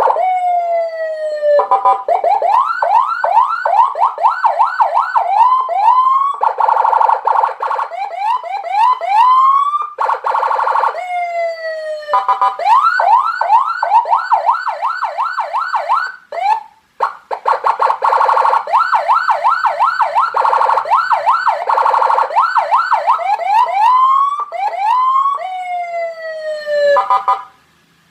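CJB 200E 100-watt electronic siren module, upgraded with a Senken tone IC, cycling through its Senken siren tones. It plays fast repeated rising yelps, long falling sweeps and buzzy steady-pitch tones, switching every few seconds, with a brief break about halfway through.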